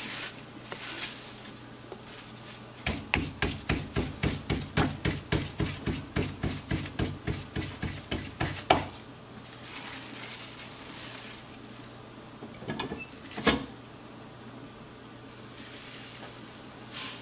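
Rapid hand pats on black-corn masa on a tortilla press, about four a second for some six seconds, then a single sharper knock, and another a few seconds later.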